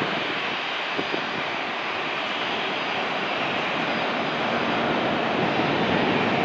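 Jet engines of an Airbus A320 airliner rolling along the runway: a steady rush of engine noise that grows slightly louder, with a faint high steady whine.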